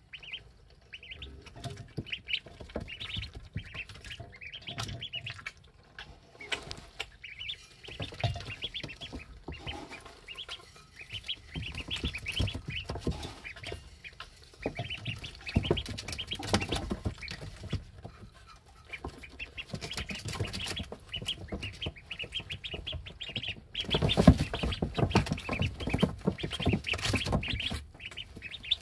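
11-day-old ducklings peeping, many short high chirps one after another, with rustling and knocking from their movement in the brooder that gets louder near the end.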